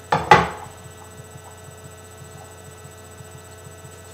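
Two quick clacks of a metal fork being set down on a plate on a wooden table, then a steady electrical hum with a faint rapid pulse in it.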